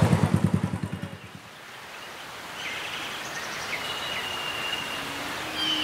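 Royal Enfield single-cylinder motorcycle engine running with a steady beat of exhaust pulses, dying away about a second in. From about two and a half seconds, birds chirp against a quiet outdoor background.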